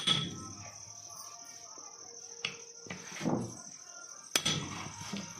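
A hammer struck three times, seconds apart, driving a new ball bearing onto the armature shaft of an electric wall-cutting grinder. A steady high chirring of insects runs behind.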